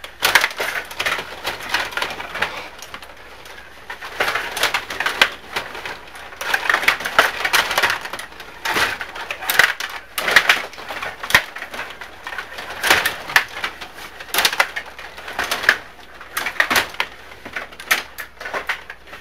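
Table hockey game in play: rapid clacking and rattling of the plastic players, rods and puck knocking against the table and boards, in uneven clusters of clicks.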